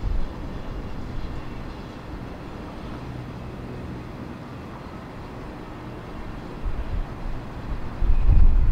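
Embraer 175 regional jet rolling along the runway, its twin GE CF34 turbofans giving a steady, fairly quiet hum at low power. A low rumble swells near the end.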